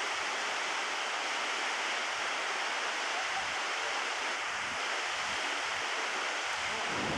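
Petrohué Waterfalls, a chute of white water pouring over volcanic rock, making a steady rushing hiss of water.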